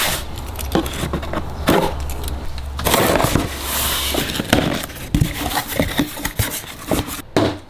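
A cardboard shipping box being opened by hand: crackling, tearing and scraping of cardboard and tape, with scattered sharp knocks.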